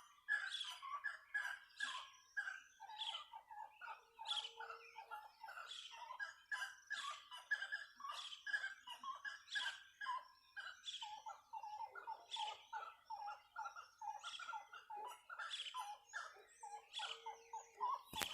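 Forest animals calling in a dense, continuous chorus of short, overlapping calls, several a second. A sharp click comes near the end.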